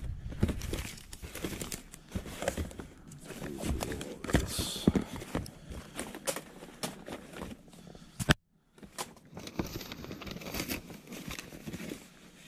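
Cardboard boxes and papers being handled: rustling and crinkling with scattered knocks and scrapes of the boxes, broken by a moment of dead silence about eight seconds in.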